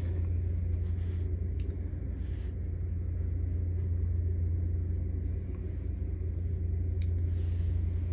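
Steady low mechanical hum, an unbroken rumble from running equipment, with a few faint light clicks.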